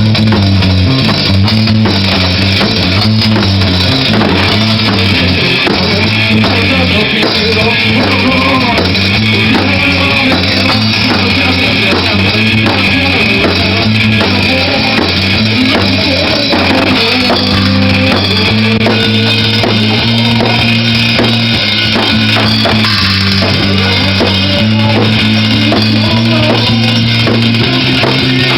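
Rock band playing live at a steady loud level, with drum kit, electric guitar and a driving bass line.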